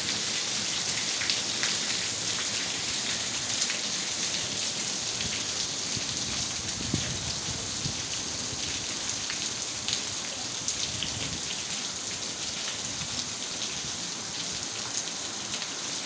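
Heavy rain falling steadily: an even hiss with scattered sharp drop impacts on hard surfaces.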